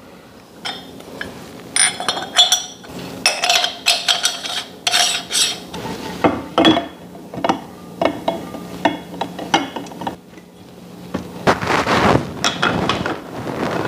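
Metal parts of a Kenwood stand mixer's meat-grinder attachment clinking and knocking against each other and the mixer as the grinder is fitted together and mounted, with a longer metal rubbing sound near the end as a part is screwed on.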